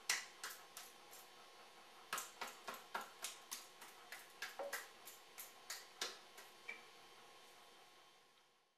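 Fingertips tapping on the bare skin of the arm, a run of light, sharp taps about three a second with a short pause about a second in: meridian-tapping self-massage along the inside of the arm. The taps stop about two seconds before the end.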